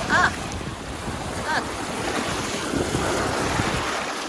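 Wind buffeting the microphone over waves washing on a lakeshore, a steady rushing noise. Two short high calls cut through it, one right at the start and another about a second and a half in.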